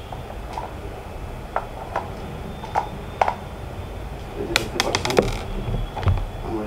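Light plastic clicks and ticks as a screwdriver works on the end cap of a plastic electric mosquito-killer lamp and the cap is pulled off. A quick run of rattling clicks follows about four and a half seconds in, then a soft thump as the lamp body is set down on the table.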